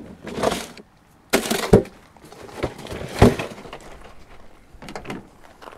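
Handling noise at a white plastic cooler as a speckled trout is put in beside another fish: scraping rustles and two hard knocks about a second and a half apart, with a smaller knock near the end.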